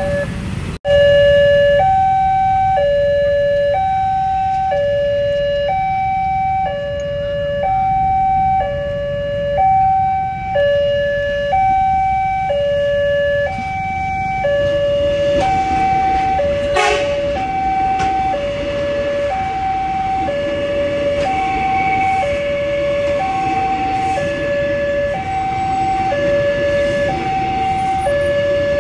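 Railway level-crossing warning alarm sounding a steady two-tone hi-lo signal, each tone held about a second. From about halfway, a passing commuter train's running noise rises beneath it.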